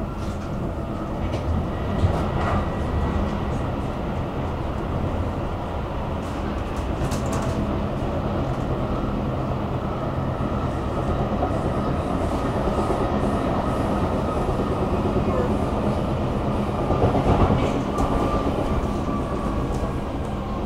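Stockholm metro train running, heard from inside the carriage: a steady rumble and hum of wheels and motors on the rails, with a couple of sharper knocks, about two seconds in and again near the end.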